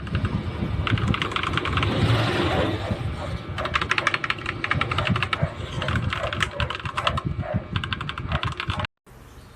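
Mechanical keyboard with yellow switches being typed on quickly: a dense, fast clatter of keystrokes that cuts off suddenly near the end, leaving a faint hiss.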